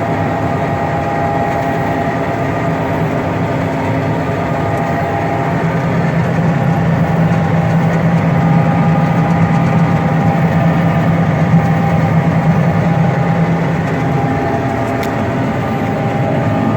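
John Deere 9600 combine running, a steady machine hum with several constant tones that swells a little in the middle.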